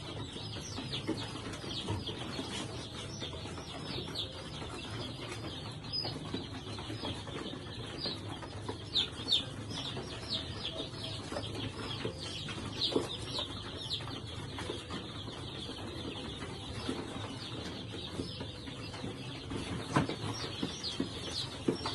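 A group of young chicks peeping: many short, high calls, each sliding downward, coming in clusters, with a sharp tap about twenty seconds in.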